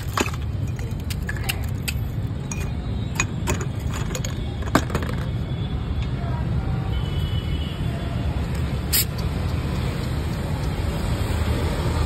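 Ice being cracked with a wooden pestle, a run of sharp, irregular knocks through the first five seconds or so, over a steady rumble of road traffic.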